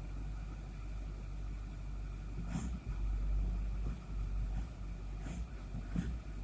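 6.4-litre Powerstroke turbo-diesel V8 of a 2008 Ford F-350 idling steadily at about 700 RPM, still warming up after a cold start. A few faint clicks sound over the low rumble.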